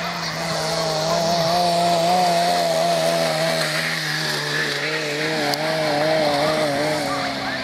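A motor running with a wavering pitch over a steady lower hum; the hum stops near the end.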